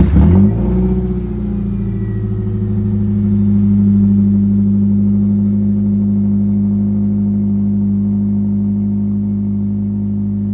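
Ford F-250 pickup's engine catching on start-up, revving up briefly and then settling into a steady idle.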